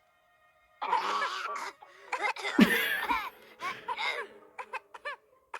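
High-pitched voices coughing and laughing in short repeated bursts, with a sharp cough about two and a half seconds in. The coughing is the sick bird's, covered up with fake coughing blamed on dry air.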